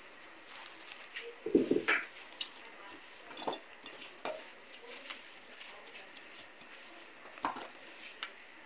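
Kitchen scissors snipping plastic cling film, and the film being handled and pressed over a glass bowl: scattered quiet clicks, snips and rustles, with a louder knock about one and a half seconds in.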